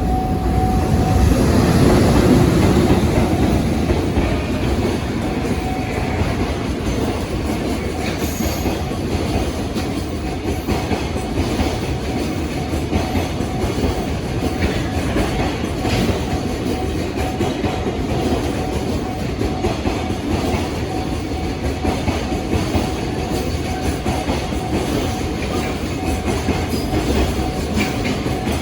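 Container freight train hauled by an EH800 electric locomotive passing close by, loudest about two to three seconds in, then the wagons rolling past in a long steady run of wheel noise over the rails.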